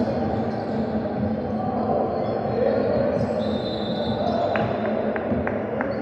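Basketball bouncing on a hardwood gym floor, echoing in the hall, with a few short sharp sounds near the end.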